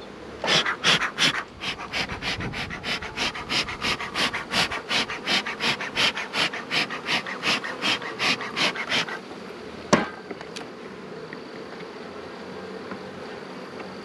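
Bee smoker bellows pumped quickly, a run of hissing puffs about three to four a second that stops about nine seconds in. About a second later comes one sharp click as a hive tool pries a frame loose in the box.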